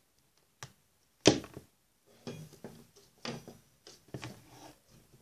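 A sharp click, then a loud knock about a second in, followed by a string of softer, irregular knocks and rustles: a plastic Barbie doll and small hair accessories being handled and set down on a tabletop.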